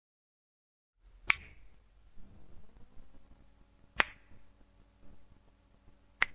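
Three single finger snaps, each a sharp click, about two and a half seconds apart, starting about a second in over faint room tone.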